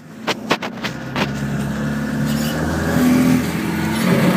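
Land Rover Defender 90's diesel engine heard from inside the cab while driving over rough quarry ground: the engine note dips briefly at the start, with several knocks in the first second, then pulls steadily and grows louder, rising in pitch about three seconds in.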